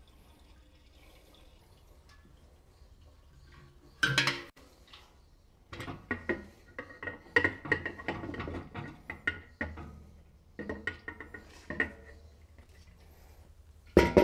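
Gasoline glugging and splashing from a gas can into a 1960 Cadillac's fuel filler neck, with the can clanking against the filler about four seconds in and again near the end as it is pulled away.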